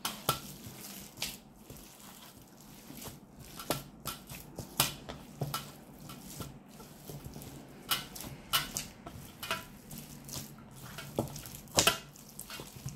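Kitchen bowls and utensils being handled, giving scattered light clicks and taps at irregular intervals.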